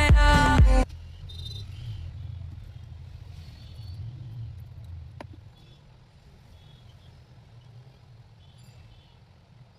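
Background music that cuts off abruptly about a second in, followed by a faint low rumble that fades, with a single sharp click about five seconds in.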